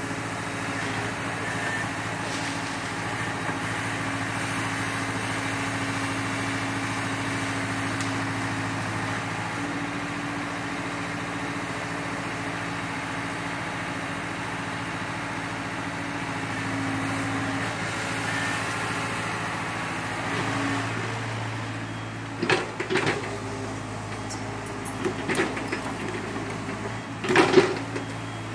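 Hyundai crawler excavator's diesel engine running steadily, its note shifting slightly as the boom and bucket work. In the last several seconds come a series of sharp cracks and knocks, the loudest near the end.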